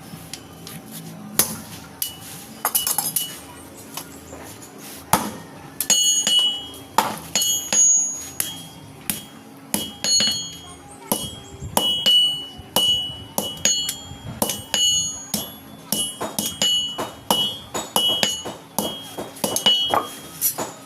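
Hand hammer striking steel on an anvil while forging a rubber-tapping knife blade. Each blow rings sharply. The strikes are sparse at first, then settle about five seconds in into a steady rhythm of a bit under two blows a second.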